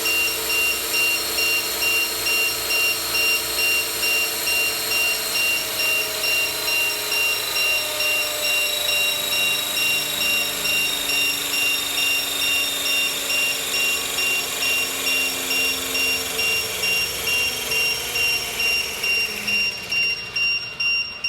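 Electric 450-size RC scale helicopter's motor and rotor whine, its pitch falling slowly and fading near the end as it winds down. A high electronic beep repeats about twice a second throughout.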